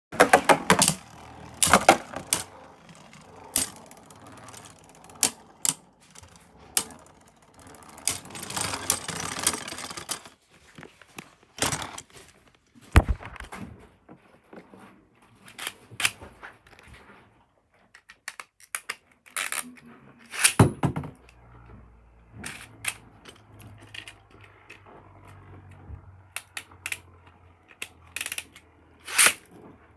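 Irregular clicks, knocks and rustling right at the microphone, like handling noise from something rubbing and bumping against it, with a few louder knocks spread through and a longer stretch of rustling about eight seconds in.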